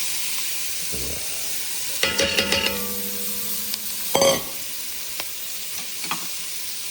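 Chopped vegetables sizzling in hot ghee and spices in a pot, the frying they make just after being added. A utensil stirs and clatters against the pot twice, about two and four seconds in.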